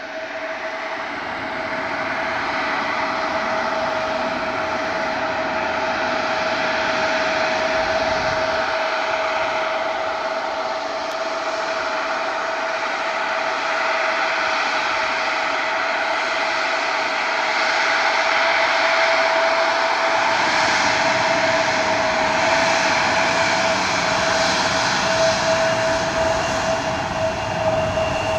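Embraer E175 airliner's GE CF34-8E turbofan engines running at taxi power as the jet rolls slowly closer, a steady whine over jet noise that swells over the first few seconds and then stays loud.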